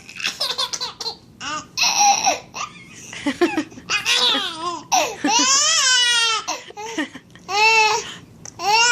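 A 7.5-month-old baby laughing and squealing in short, high-pitched peals with brief gaps, with a longer rising-and-falling squeal about five seconds in.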